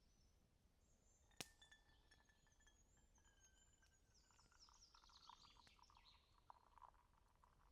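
Faint songbirds calling and trilling, with one sharp click about a second and a half in.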